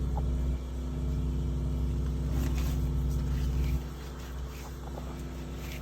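Water jetter's engine running steadily with a low hum. Its level steps down slightly about half a second in and more clearly just before the four-second mark.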